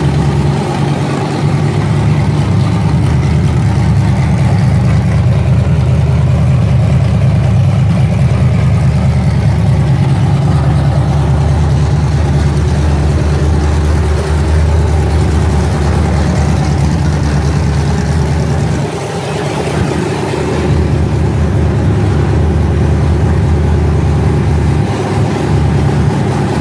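Small-block Chevy 355 V8 with a solid-roller cam idling through a 3-inch X-pipe and 40-series Flowmaster mufflers. Steady and loud, with a brief dip about two-thirds of the way through.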